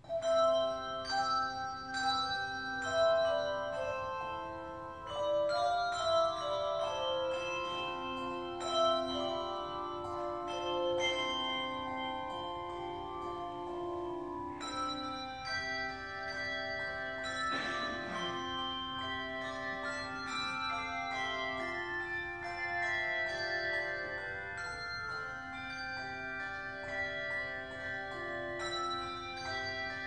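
Handbell choir ringing a hymn tune: a melody of tuned handbells over chords, each note struck and left to ring on. The ringing begins with a sharp chord right at the start, after a moment of near silence.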